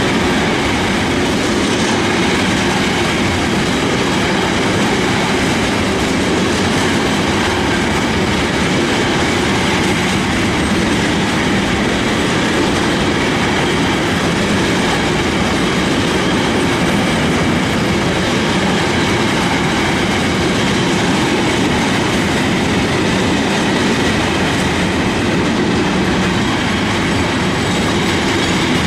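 Container wagons of a long intermodal freight train rolling past, a steady, loud rumble and clatter of steel wheels on the rails that stays even throughout.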